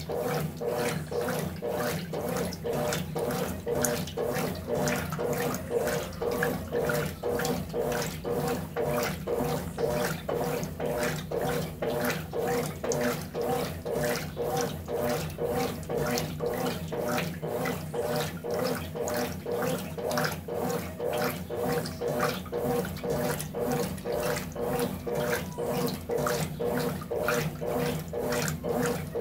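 Brastemp BWT12 12 kg top-loading washing machine in its wash cycle: water and clothes sloshing in a quick, even rhythm as the agitator swings back and forth, over a steady machine hum.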